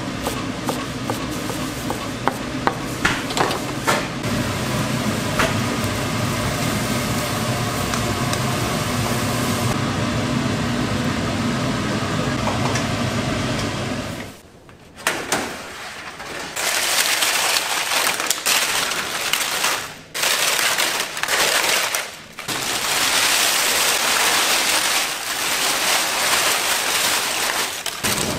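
Commercial kitchen cooking: a steady sizzling stir-fry in a large pan with a few utensil clicks, then after an abrupt cut about halfway through, a hissing kitchen noise that comes and goes with short breaks.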